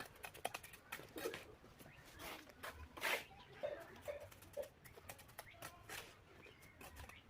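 Irregular sharp taps and scrapes of bricklaying work: a trowel knocking and scraping on bricks and mortar.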